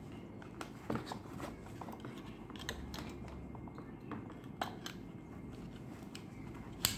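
Handling noise from a Monteverde Ritma fountain pen, its paper card and its presentation box: scattered soft clicks and taps, with the sharpest click near the end.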